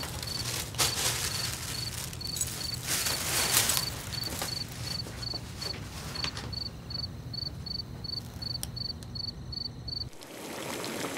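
A cricket chirping steadily, short high chirps at about three a second, with some rustling and handling noise in the first four seconds. The chirping cuts off suddenly about ten seconds in, leaving a faint low hum.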